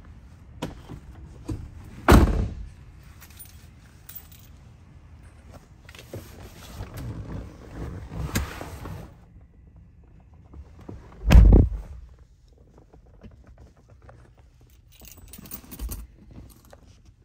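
Keys jangling and clicking in scattered bursts, with two loud thuds: the first about two seconds in, the second and louder about two-thirds of the way through.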